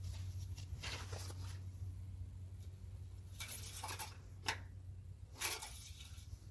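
A few faint, brief rustles and scrapes of handling, about a second in, around three and a half to four and a half seconds, and again near five and a half seconds, over a low steady hum.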